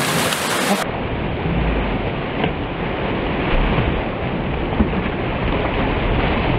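Rough sea surging and breaking against rocks: a steady rush of foaming white water with low rumbling swells.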